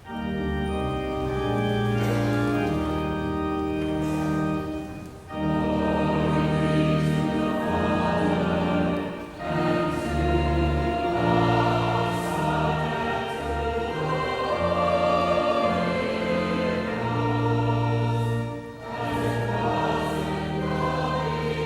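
Choir singing a slow sung response in sustained chords, phrase by phrase, with short breaks between the phrases.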